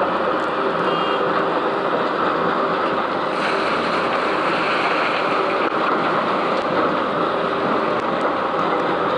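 A Doosan DX380LC excavator's diesel engine working alongside a running Terex Finlay J-1170 jaw crusher, a steady heavy-machinery din as the bucket dumps rock into the crusher and swings back. A short high beep sounds about a second in.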